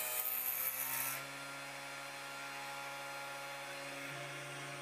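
Spindle motor of a CNC 3018 Pro milling machine running with a steady hum. In about the first second a brief hiss as the drill bit cuts into the circuit board, the motor's pitch dipping slightly and coming back.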